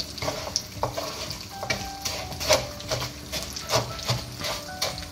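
Wooden spatula stirring and scraping raw rice grains through hot oil in a frying pan, the oil sizzling as the rice starts to roast. The strokes come two or three a second.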